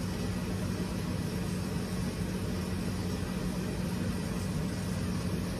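Steady room background hum with an even hiss, no change throughout.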